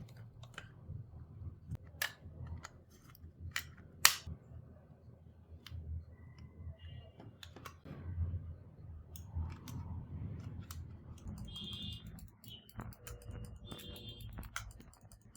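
Scattered sharp clicks and taps from handling the small plastic parts of a computer mouse being reassembled and tested, the sharpest click about four seconds in.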